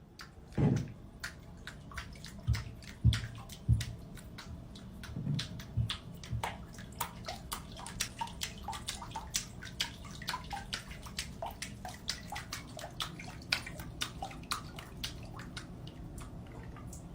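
Water sounds with many small clicks and drips throughout, and a few soft thumps in the first few seconds.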